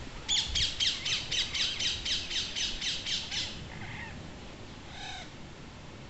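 Rose-ringed parakeets calling: a rapid run of high squawks, each falling quickly in pitch, about four a second for some three seconds, then a short burst again about five seconds in.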